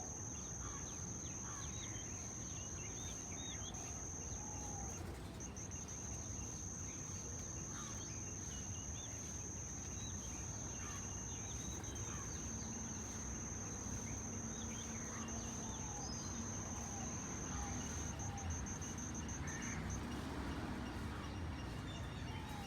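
An insect's steady, high-pitched trill, breaking briefly about five seconds in and cutting off a couple of seconds before the end, with short scattered bird chirps and a low steady background rumble.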